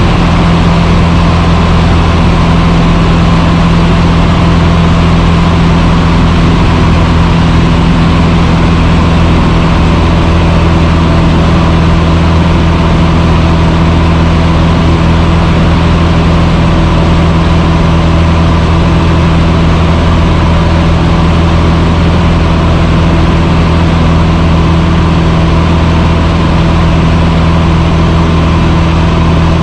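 Cessna 150's Continental O-200 four-cylinder engine and propeller running at a steady, unchanging drone.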